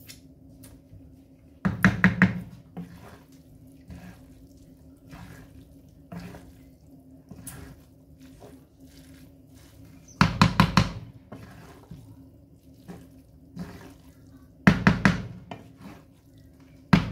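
Wooden spatula stirring and scraping fried rice in a nonstick frying pan, with three short bursts of rapid clattering knocks as spatula and pan strike, over a steady low hum.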